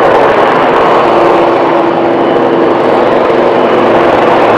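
AgustaWestland AW159 Wildcat HMA Mk2 helicopter hovering low: the steady, loud noise of its twin turboshaft engines and rotors, with a constant whine.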